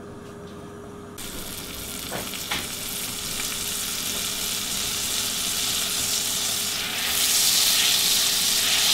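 Butter melting and sizzling in a preheated cast-iron skillet. The sizzle starts suddenly about a second in and grows steadily louder, and near the end a spatula pushes the butter around the pan.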